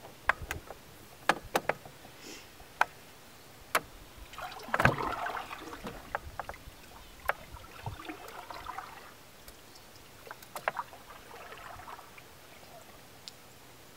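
Canoe paddling: three strokes, each a swish and gurgle of water around the paddle blade, with sharp knocks and taps against the canoe's hull scattered between them. The loudest is a knock together with the first stroke.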